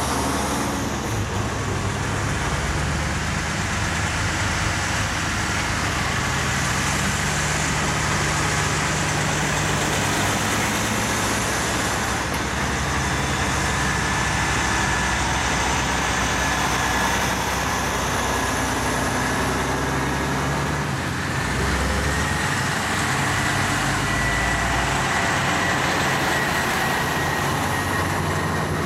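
A convoy of diesel truck tractor units without trailers drives past one after another, engines running steadily over tyre and road noise, with a faint high whine in the second half.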